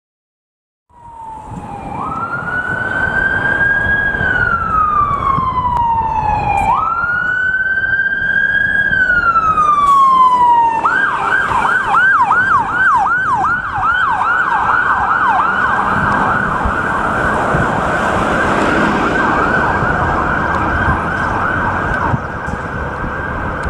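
Ambulance siren running code 3. It starts about a second in on a slow wail, rising and falling twice over about ten seconds, then switches to a fast yelp of about four sweeps a second that runs on, over low traffic rumble.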